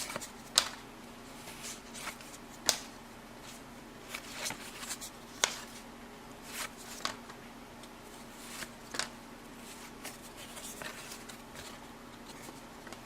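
1984 Topps hockey cards being flipped through one at a time by hand: soft sliding rustles of thin cardboard with a few sharp card snaps every couple of seconds.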